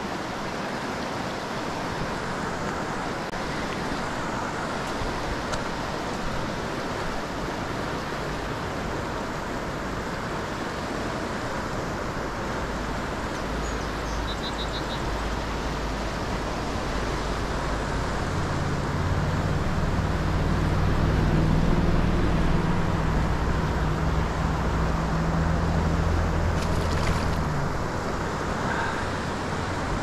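Steady rush of a high, fast river. A low droning hum joins about two-thirds of the way in and fades out shortly before the end, with a single sharp click near the end.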